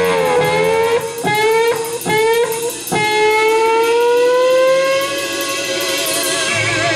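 Electric guitar played live: a few picked notes bent down and up, then one long held note that slowly rises in pitch and picks up a vibrato near the end.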